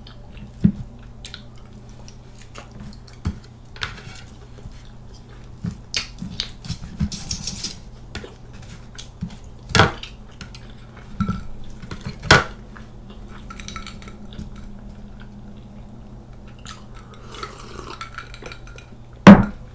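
Metal fork and knife scraping and clinking against a metal serving tray while cutting a waffle, in scattered sharp clicks with two louder clinks past the middle. A loud knock near the end.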